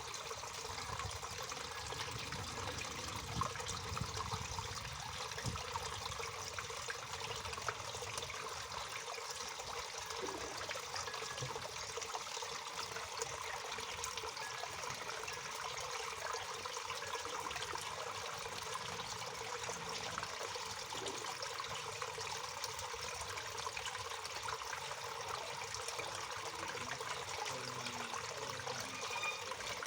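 Waterfall: water falling and splashing steadily, with many small splashes and trickles through the rush.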